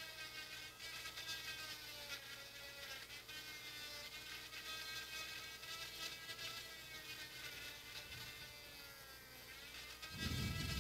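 Small electric hand drill whining with a thin buzz, its pitch wavering and dipping slightly as it drills into a graphics card's circuit board. A louder low rumble comes in just before the end.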